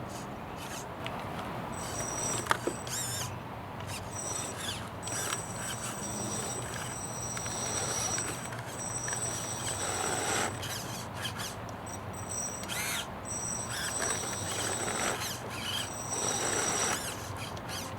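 Small RC crawler's electric motor whining, with a high pitch that starts and stops in stretches of a few seconds as the throttle is worked, over a steady low drivetrain hum; one sharp click about two and a half seconds in.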